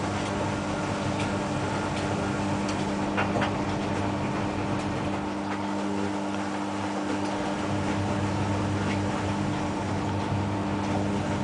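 Bauknecht washing machine running with a steady hum, with a few faint clicks.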